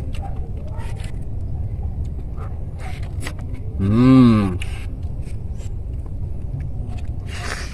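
A short, low hum rises and then falls in pitch about four seconds in, over a steady low rumble.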